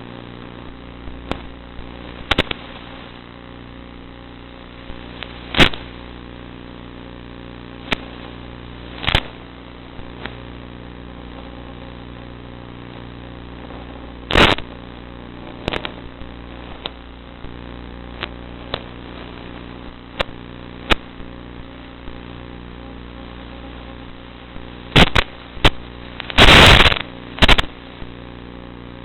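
Zagi flying wing's motor and propeller running at a steady pitch, heard through a thin, low-quality audio feed. Sharp pops break in every second or two, with a longer run of them near the end.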